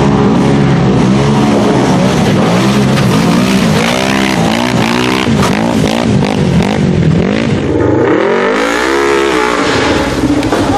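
Off-road vehicle engine revving up and down hard, its pitch rising and falling over and over as the throttle is worked.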